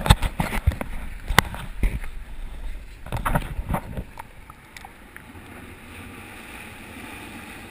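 Water splashing and sloshing with sharp knocks on a waterproof camera housing as it is dunked into the sea. At about four seconds in it settles into a quieter, muffled, steady underwater hiss once fully submerged.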